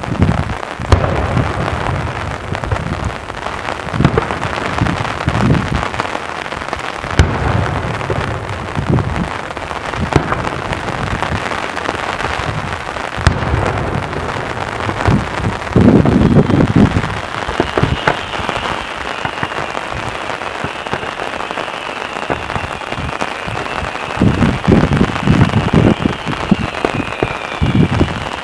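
Daytime aerial fireworks: a dense, rain-like crackle from crackling-star effects, with repeated low booms of shells bursting, heaviest about halfway through and again near the end, and a few sharp cracks. A faint high whistle joins in past the middle.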